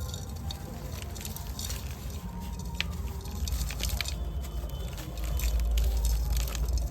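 Dry, dusty sand and clay crumbling: soft scattered crunches and small crackles over a steady low rumble that swells about five seconds in.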